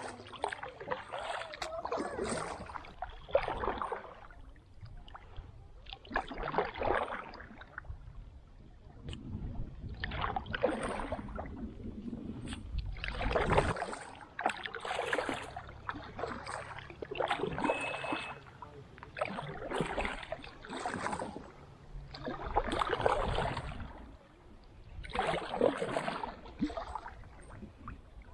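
Kayak paddle strokes: the blades dip and pull through the water, splashing and dripping in a steady rhythm of one stroke every couple of seconds.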